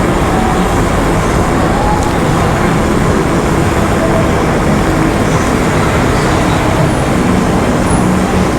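Steady, loud road noise while riding an electric skateboard through city traffic.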